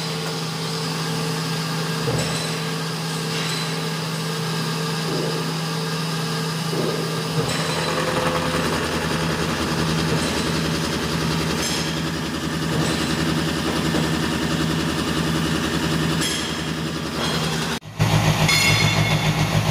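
Kotec plate beveling machine running with a steady hum. About seven and a half seconds in the sound grows fuller. Just before the end it drops out for a moment and returns louder, with a fast pulsing.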